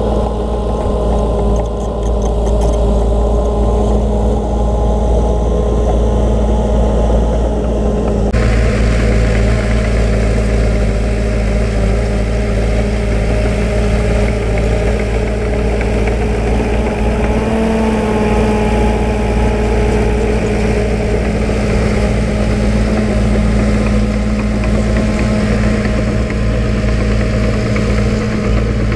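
Diesel engine of heavy earthmoving machinery running steadily with a constant pitched drone and deep rumble; the sound suddenly turns harsher about eight seconds in.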